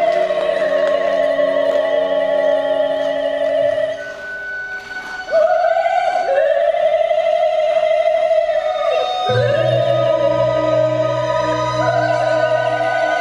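Figure skating program music: an operatic piece with a voice holding long notes with vibrato. It drops quieter about four seconds in, then swells back.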